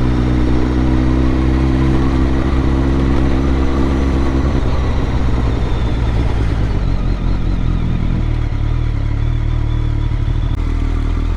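BMW motorcycle engine running on the road under a steady rush of wind noise. The engine note holds steady for the first few seconds, then drops away about four and a half seconds in and changes again near eight seconds.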